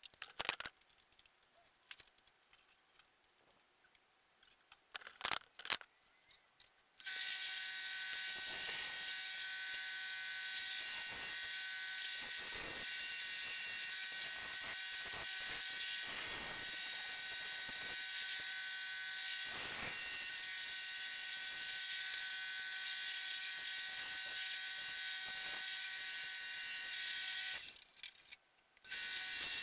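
A few sharp clicks, then an electric power tool's motor starts about seven seconds in and runs steadily with a high whine and hiss. It stops briefly near the end and starts again.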